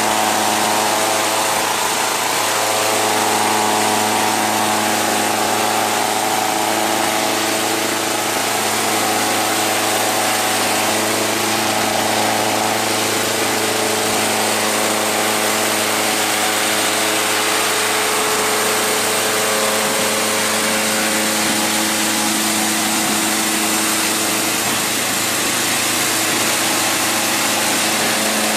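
CS300 concrete scarifier running steadily while it strips an old epoxy coating from a concrete floor: a constant motor hum under a dense, even scraping noise from its cutters working the surface.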